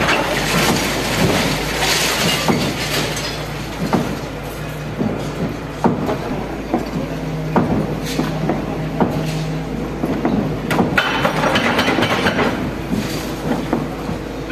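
Volvo wheeled excavator's diesel engine running steadily as its arm demolishes a brick building, with masonry and rubble repeatedly knocking and clattering down. About eleven seconds in, a longer rush of falling debris.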